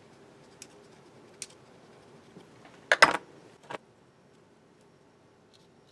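A Zippo-style lighter being handled on a bench: a couple of light clicks, then a loud cluster of sharp metal clacks about three seconds in and one more clack just after.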